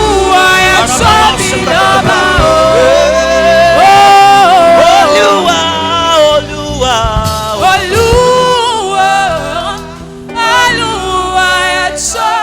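Gospel choir singing a slow worship song with instrumental accompaniment, voices holding long, gliding notes; the music dips briefly about ten seconds in.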